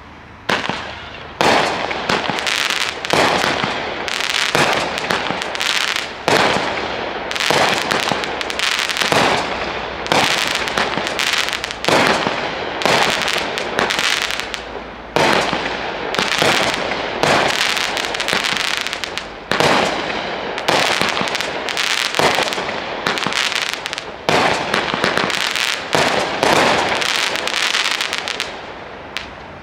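Phantom Fireworks Machine Gun Shell, a 19-shot 200-gram cake firework, firing shot after shot, about one every second and a half. Each shot is a sharp report followed by a rattle of many small crackling pops, and the shots die away near the end.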